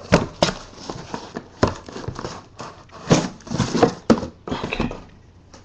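Cardboard box of football trading cards being handled and opened on a tabletop: a series of sharp knocks and taps with scraping and rustling of cardboard in between, quieter near the end.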